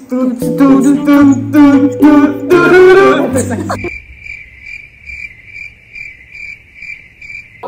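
A few seconds of music with a singing voice over a bass line, cut off abruptly about four seconds in. Crickets then chirp in an even, high pulse, between two and three chirps a second: the edited-in 'crickets' effect for an awkward silence.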